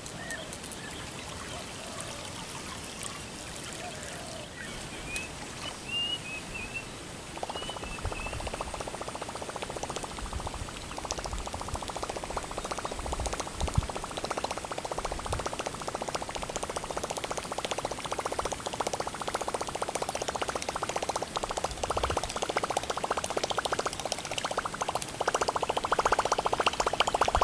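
Rapid watery gurgling of a topwater lure being reeled in across the lake surface. It starts about a quarter of the way in and grows louder toward the end as the lure nears, with one brief splash about halfway.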